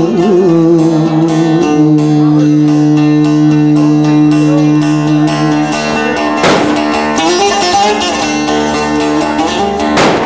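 Bağlama (long-necked Turkish saz) played with quick plectrum strokes in a Turkish folk (bozlak) instrumental passage, over a long steady held note, with two harder strummed strokes, one past the middle and one near the end.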